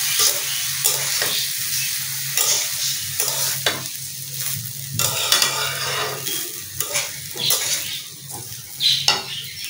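Long metal spatula stirring and scraping rice and soya chunks around a kadai in irregular strokes over a gas flame, with the oil sizzling underneath: the rice is being fried in the oil before water is added.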